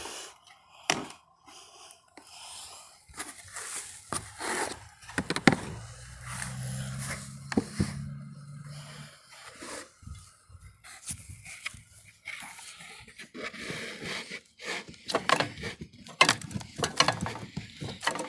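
Hands digging and raking through loose potting soil in a pot, a run of irregular scrapes and rustles of dirt. A low hum runs for a few seconds midway.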